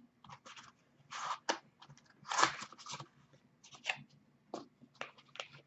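Hands opening a box of trading cards and its pack: an irregular run of short crinkling and rustling sounds from the packaging, the loudest about halfway through.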